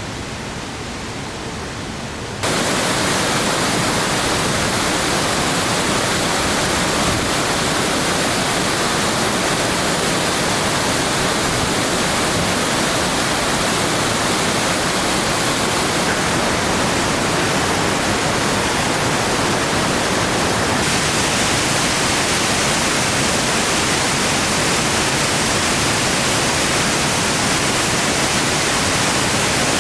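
Waterfall rushing: a steady, loud hiss of falling water. It jumps louder about two seconds in, and its tone shifts a little twice later on.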